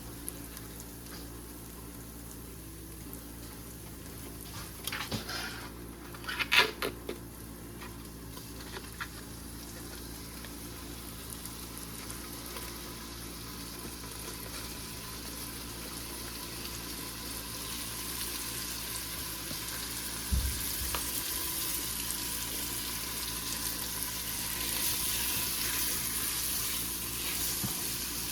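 Chicken frying in oil and curry paste in a pot over medium-high heat: a steady sizzle that grows louder over the last third. A few sharp knocks sound around six seconds in and one more about twenty seconds in.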